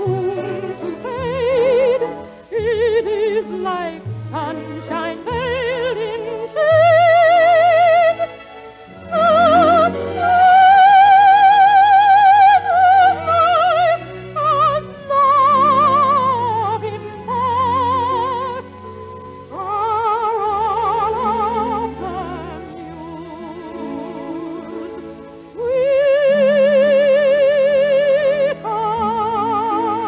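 A female soprano singing an operatic song with a small string orchestra. She holds several long high notes with wide vibrato, the longest and loudest lasting about four seconds near the middle.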